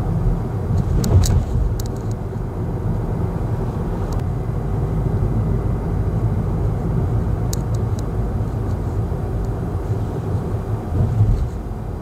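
Steady low road and engine rumble inside the cabin of a Kia Seltos while driving, with a couple of brief faint clicks.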